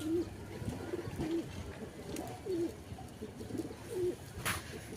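Pigeons cooing: a string of short, low coos about once a second, with a brief sharp noise near the end.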